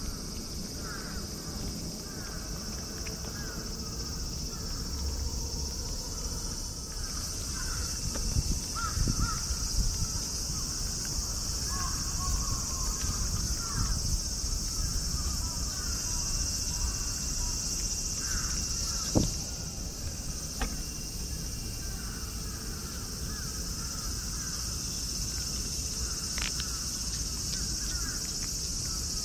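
A steady, high insect chorus, with short bird calls coming and going over it. Close to the microphone, a cat licks a squeeze tube of cat treat, with low rustling and one sharp click about nineteen seconds in.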